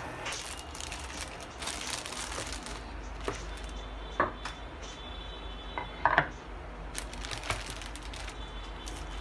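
Clear plastic wrapping on a packaged pizza crinkling as it is handled, with two sharp knocks about four and six seconds in. A low steady hum runs underneath.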